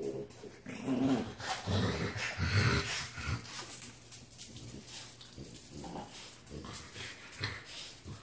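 French bulldog puppies playing and scuffling, making small dog sounds, loudest in the first three seconds or so.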